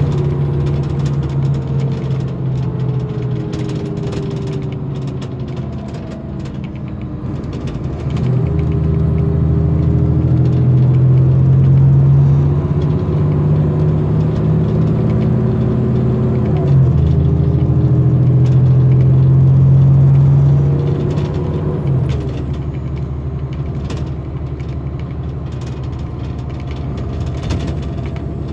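Onboard sound of a 2008 VDL Bova Futura FHD120-365 coach's diesel engine and ZF gearbox, heard from inside the passenger cabin. The revs fall at first, then the engine pulls under power from about a third of the way in, with a brief dip partway through, and eases off again near the end. A faint high whine comes in while it pulls.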